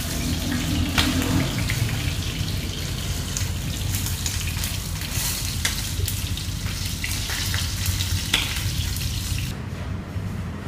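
Hot oil sizzling and crackling in a frying pan as pieces of field-rat meat fry, with a sharp pop now and then. Near the end the sizzle drops away to a quieter hiss.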